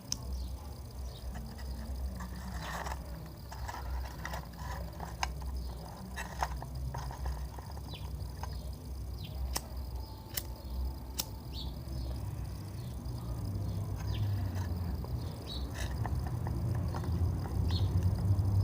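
Small fire of dry grass catching inside a drink can, with scattered, irregular crackles over a low rumble that grows louder near the end.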